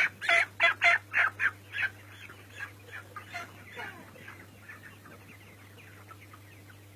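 Chickens clucking in a quick series of short calls, loud for about two seconds and then fainter calls carrying on.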